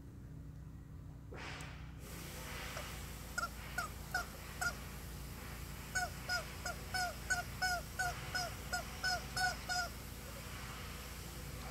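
Rubber chicken toy squawking as a horse chews it: four short honks, then after a pause about a dozen more in quick succession, each bending in pitch.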